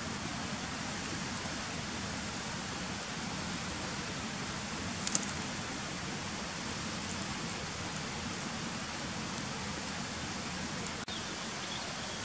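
Wood campfire crackling, with a few sharp pops, the loudest small cluster about five seconds in, over a steady rushing hiss.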